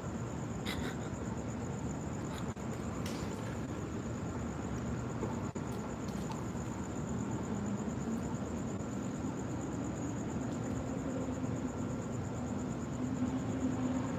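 Steady rush of floodwater from a broken water main running along the street, with a thin, continuous high tone over it and a few faint clicks.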